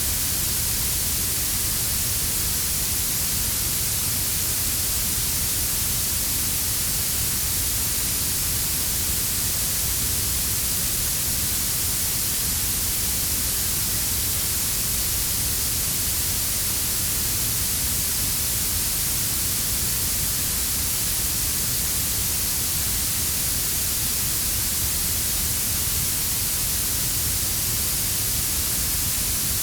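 Steady synthetic blue noise: a hiss that is strongest at the highest pitches, layered over a quieter brown-noise rumble in the bass. It holds constant with no changes.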